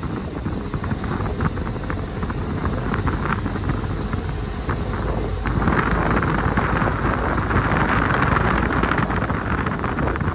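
A passenger ferry under way, heard from its open deck: a steady low engine rumble under wind on the microphone and rushing water. About halfway through, a louder rushing hiss of wind and water comes in and holds.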